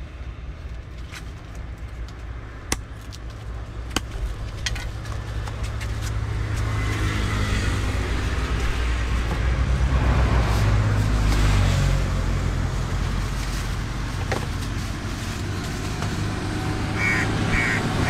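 Road traffic: a heavy vehicle's engine rumble grows louder from about six seconds in and stays loud. A few sharp knocks come in the first five seconds.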